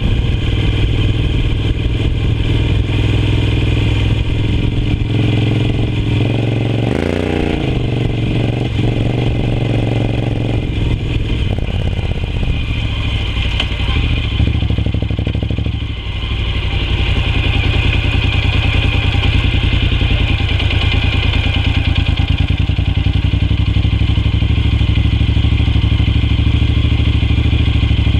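Honda NC750X's parallel-twin engine running under way on a dirt track, with a brief up-and-down swing in pitch about seven seconds in and a short dip in level about halfway through before it runs steady again.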